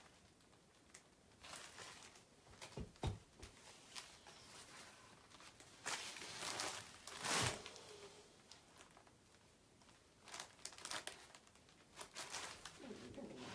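Faint rustling of an embroidered net dress and the cloth around it being handled, in short irregular bursts, with soft knocks about 3 and 7 seconds in.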